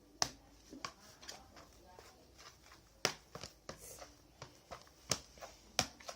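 White-glue slime being stirred and squished in a bowl, giving irregular sharp wet clicks and smacks, the loudest about three and five seconds in. The slime is still sticky and not yet at its final texture, with extra liquid soap being worked in.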